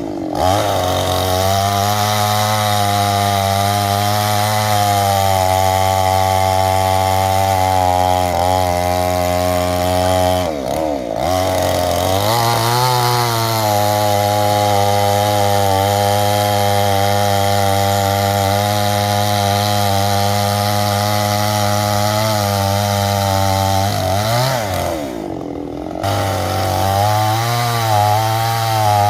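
Petrol chainsaw running steadily under load, cutting through a coconut tree trunk. Its engine note dips and recovers twice, about eleven seconds in and again about twenty-five seconds in.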